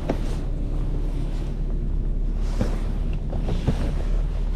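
Tow truck's engine running in a steady low rumble, heard from inside the cab while maneuvering, with a few sharp clicks or knocks near the end.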